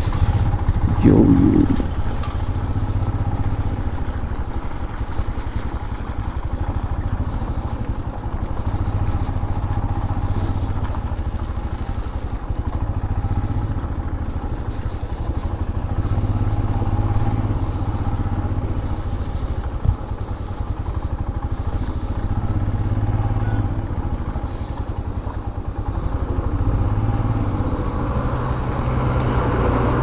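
Motorcycle engine running steadily at low speed, heard from on board the bike as it crawls along a rough, muddy road.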